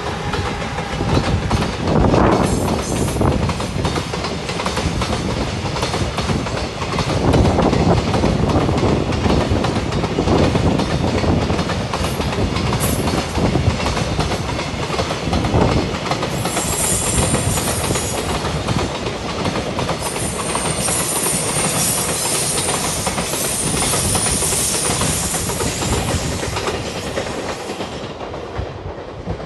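Freight train hauled by a JR Freight EF210 electric locomotive passing close by, the locomotive going by at the start and then a long run of container flatcars clattering over the rail joints. A high-pitched wheel squeal rises over the clatter in the second half. The sound eases off slightly as the last wagon passes near the end.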